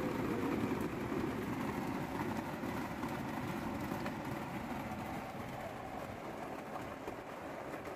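Heavy rain drumming steadily on the metal roof and windows of a camper van, heard from inside, easing slightly over a few seconds.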